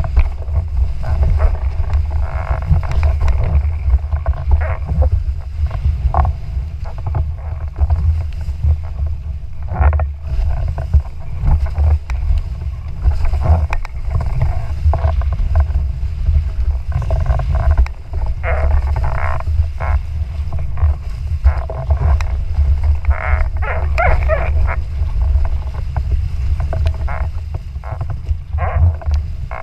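Heavy wind rumble on the microphone, with water rushing and spraying off a windfoil board that comes and goes in uneven gusts of hiss.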